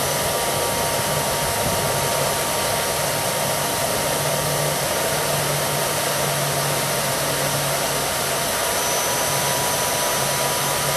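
Electric blower forcing air through a pipe into a charcoal brake-drum forge, running steadily as a continuous rush of air with a faint steady whine.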